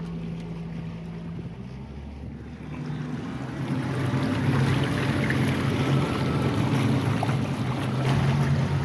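Small speedboat's engine running, getting louder about three seconds in as the boat gets under way, with rushing water and wind on the microphone.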